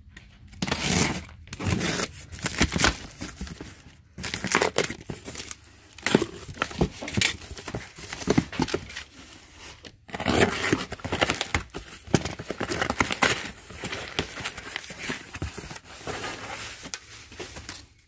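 Box cutter slicing through packing tape and cardboard as boxes are opened, with flaps rustling and tearing in irregular bursts; bubble wrap crinkles near the end.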